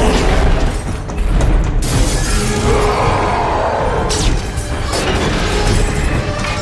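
Glass shattering and metal crashing in a film action scene, over loud dramatic film music. There is a sudden crash at the start and a second, sharper one a little under two seconds in, followed by a few shorter impacts.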